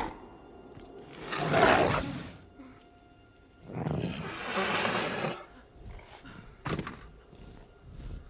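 Velociraptor film sound effects: two long, rough growling calls, the second reaching up into a hiss, then a short sharp call near the end.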